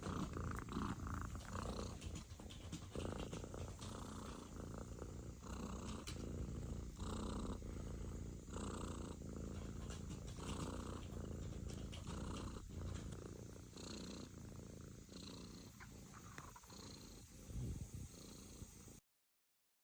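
British Shorthair kitten purring, a steady low rumble that swells rhythmically about every one and a half to two seconds. It cuts off suddenly near the end.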